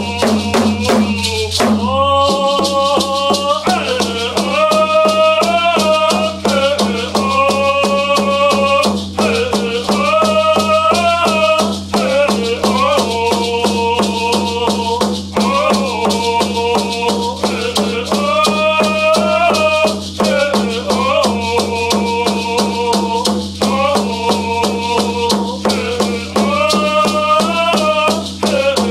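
Two men singing a First Nations hand drum song in full voice, phrase after phrase of held notes, over a steady beat on a hide hand drum with a rattle shaken along.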